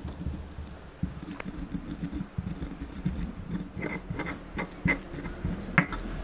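Stone pestle crushing and grinding garlic, coriander seeds and candlenuts in a stone mortar (Indonesian ulekan and cobek): gritty stone-on-stone scraping with irregular knocks and clicks, sharper in the second half as the spices are ground to a coarse powder.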